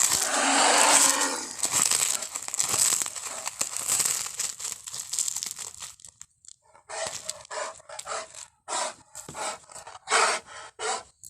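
Made-up creature vocalisation for the extinct giant armadillo Doedicurus. It starts as a long hissing, noisy call that is loudest in the first second or two and runs for about six seconds. After a short gap, a string of short hissing bursts follows.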